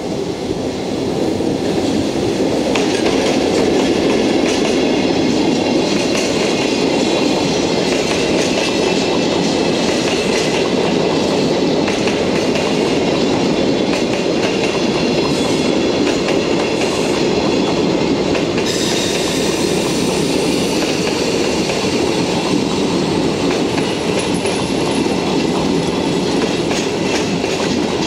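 Freight train of Chiki flat wagons loaded with long steel rails rolling past close by behind an EF65 electric locomotive: a steady rumble of wheels with clickety-clack over the rail joints, swelling in the first second. About two-thirds of the way through, a brighter, higher hiss joins the rumble.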